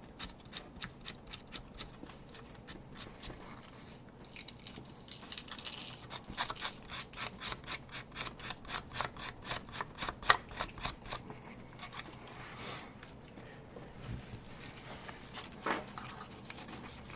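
Sandpaper rubbed back and forth over a plastic keycap to grind away its coating: quick scratchy strokes, about three a second, stopping briefly twice.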